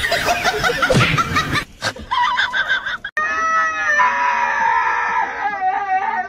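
A person laughing, then, about three seconds in, a husky howling and yowling in long, wavering cries while being washed in a grooming tub.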